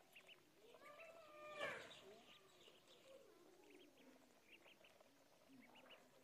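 Faint peeping of a flock of ducklings feeding, short high peeps scattered throughout. About a second in, a longer drawn-out call rises out of them, peaking with a sharp tap.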